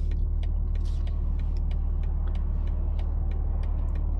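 BMW G80 M3's twin-turbo straight-six running steadily at low revs, heard from inside the cabin as a low, even hum, with faint irregular light ticks over it.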